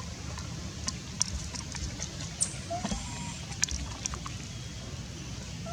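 A few short, faint animal calls, brief rising chirps, over a steady low rumble, with scattered sharp clicks.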